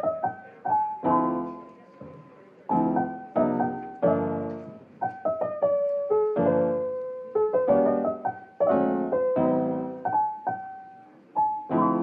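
Background piano music: chords and single melody notes struck one after another, each left to ring and die away.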